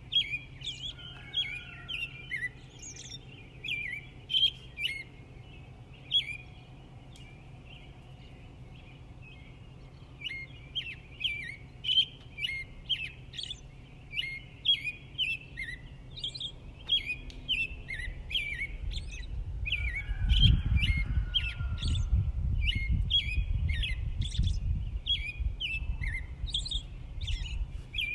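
Small birds chirping in quick, repeated short calls, with a lull of a few seconds about a quarter of the way in. A low rumbling noise comes in about two-thirds of the way through and grows louder under the chirping.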